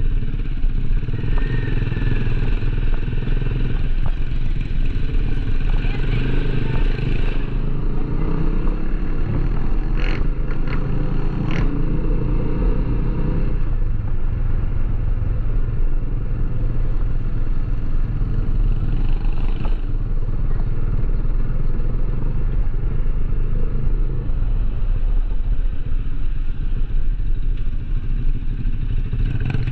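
A small engine running steadily at an even speed, with two sharp clicks about ten and eleven and a half seconds in.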